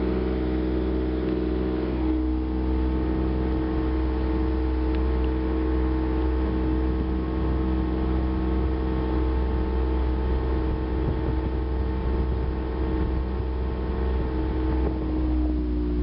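1979 Volvo Penta 400 outboard motor running steadily at cruising speed, pushing the boat across open water, its note dropping slightly near the end. Under it runs a low rumble of wind on the microphone.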